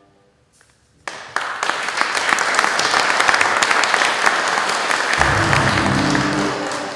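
Audience applauding, starting about a second in after a brief hush and running on; low music notes come in underneath near the end.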